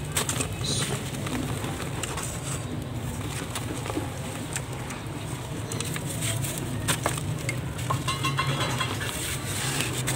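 A dry sand-and-cement chunk crumbling in the hands, with gritty crunching and crackling and bits falling into a metal bowl, thickest near the end. A steady low hum runs underneath.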